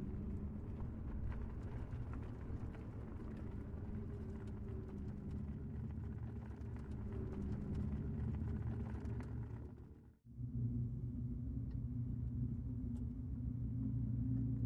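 Low steady rumble of background ambience with no distinct event. It cuts out briefly about ten seconds in and comes back as a steadier low hum.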